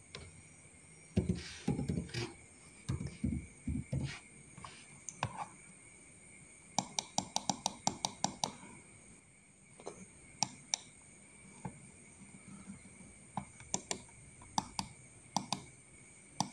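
Typing on a computer keyboard: short runs of key clicks, the quickest run about a third of the way in, with scattered single clicks and a few duller knocks in the first seconds.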